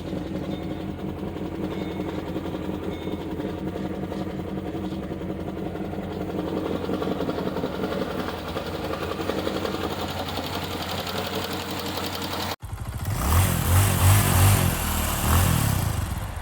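2012 Chevy Caprice PPV's 6.0 L LS V8 idling just after a cold start through long-tube headers and an aftermarket exhaust, with a fast, even ticking knock from the top end that the owner says sounds like a stuck lifter. About three-quarters of the way through, the sound cuts to a louder, more pulsing run of the engine.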